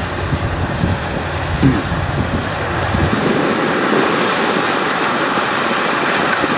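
Kubota DC105X diesel rice combine harvester running as it cuts through the field, a steady machine noise at a distance. Wind rumbles on the microphone for about the first three seconds.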